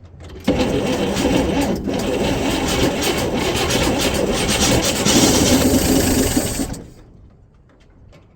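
A 1958 Chevrolet Apache's 235 straight-six being cranked by its starter: a loud, steady rasping churn that starts about half a second in and cuts off abruptly after about six seconds.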